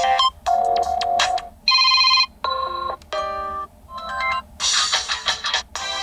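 Stock Android ringtones on a Chuwi HiPad X tablet, previewed one after another. About six different short melodic tones play in quick succession, each cut off after half a second to a second as the next is chosen.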